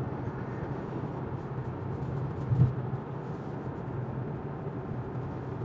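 Steady road and engine rumble heard inside a car cabin cruising at motorway speed, with a brief low thump about two and a half seconds in.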